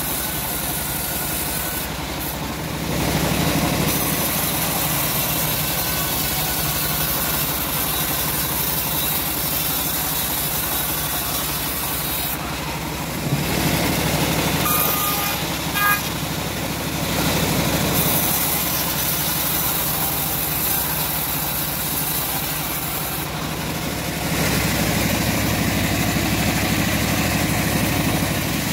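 Home-built band sawmill running steadily while its blade rips a short teak log into boards. The noise swells in three long stretches as the blade works through the wood.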